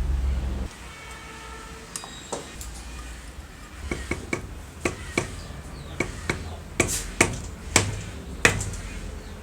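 Hand work on small metal parts: a low rumble that stops under a second in, then about a dozen sharp metallic taps and clicks in the second half.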